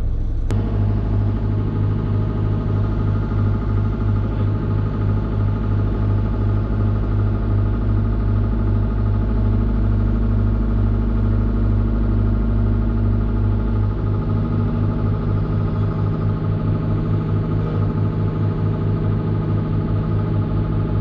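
Excavator diesel engine running steadily, heard from inside the cab while the machine holds a suspended concrete pier. Its note shifts about two-thirds of the way through.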